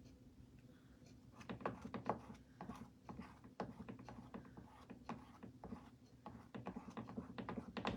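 Faint, irregular light taps and scrapes, several a second, as pink paste is dabbed and worked onto a chalkboard through a stencil pattern.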